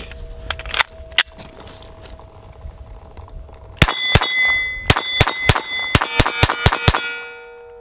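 Glock 44 .22 LR pistol firing a quick string of about ten shots, starting about four seconds in and lasting some three seconds, with steel targets ringing from the hits. A few clicks come before the shooting.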